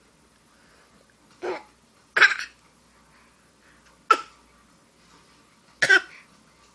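A person's laugh coming out as four short, abrupt bursts, each cutting off almost at once instead of running on: a laugh that stops halfway.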